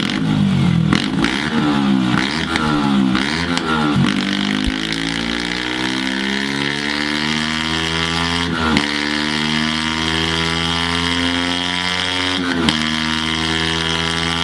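A Yamaha YZF-R sport motorcycle's engine and exhaust. It starts with a few quick throttle blips that rise and fall, then goes into a long acceleration with the pitch climbing steadily, broken by two brief dips about nine and thirteen seconds in.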